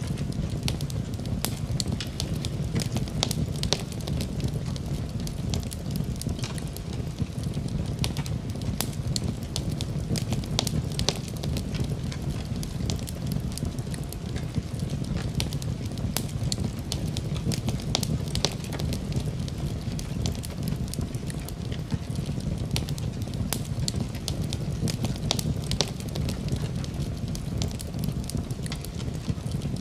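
Wood fire burning in a fireplace: a steady low rumble of flames with frequent sharp crackles and pops scattered irregularly throughout.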